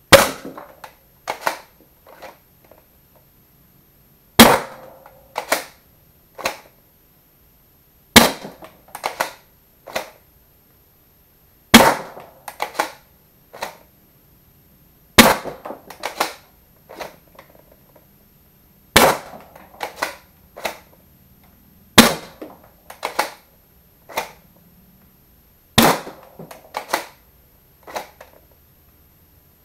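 A Worker Prophecy Type R spring-powered foam-dart blaster with a brass breech insert firing single shots: eight sharp cracks, about one every three and a half to four seconds, each followed by a few lighter clicks and knocks.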